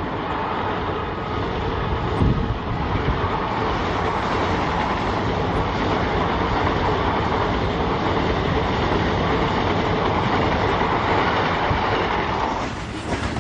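Passenger express train's coaches rushing past at speed, wheels clattering over the rail joints, with a heavy thump about two seconds in. Near the end the sound changes as a goods train's wagons take over.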